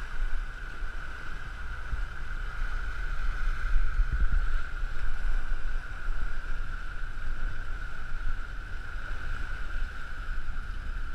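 Sport-fishing boat running at sea: a steady hum and low rumble over the rush of the wake, with wind buffeting the microphone.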